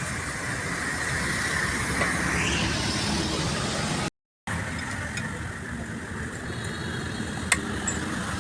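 Steady hum of a vehicle engine running, with a brief rising whine about two and a half seconds in, a short break about four seconds in, and a single sharp click near the end.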